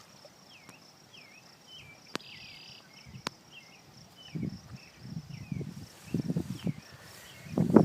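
Insects trilling steadily, with a string of short chirps repeating about twice a second and two sharp clicks in the first half. From about halfway, low, irregular swishing sounds grow louder.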